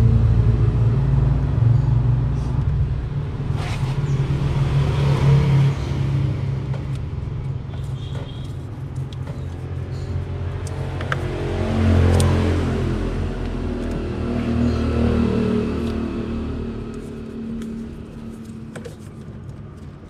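A low engine rumble that swells and fades several times, loudest about twelve seconds in, and dies down near the end.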